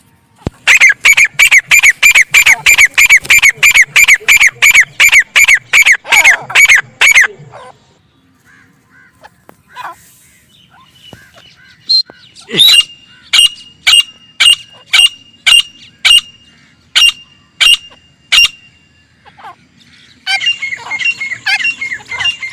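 Grey francolin (desi teetar) calling. A fast run of loud, shrill repeated calls, about two a second, stops about seven seconds in. After a pause comes a series of about a dozen sharper high notes, and a dense run of calls starts again near the end.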